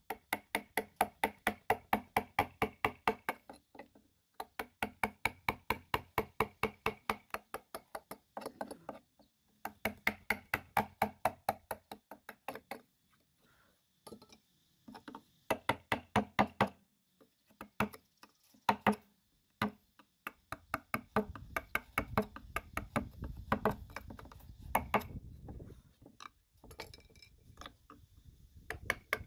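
A woodcarving gouge being driven into hardwood by rapid mallet taps, about four or five sharp knocks a second, in runs of a few seconds with short pauses. The taps grow sparser and more irregular in the second half.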